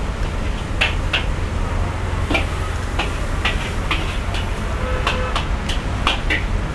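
Metal spoon clinking and scraping against a ceramic plate of fried rice while eating: about a dozen short, irregular clinks over a steady low background rumble.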